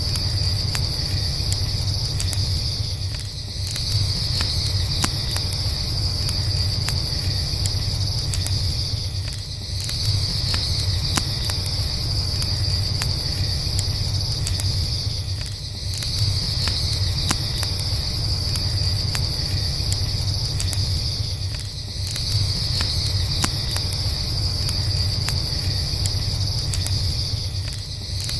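A chorus of crickets chirring steadily in a high band, dipping briefly about every six seconds. Under it, a campfire crackles with scattered small pops over a low, steady rumble.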